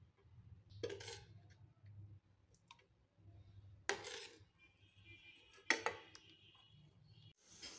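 Steel ladle knocking against stainless-steel vessels three times, about a second in, about four seconds in and near six seconds, as thick tamarind curry is ladled from a pan into a bowl.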